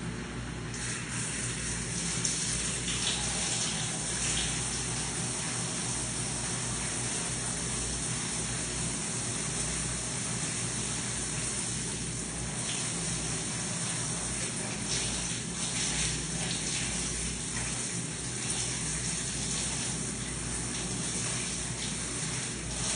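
Water running steadily from a handheld shower head.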